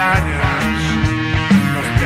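Rock band playing: drums keep a steady beat under bass and electric guitar, with a wavering lead line.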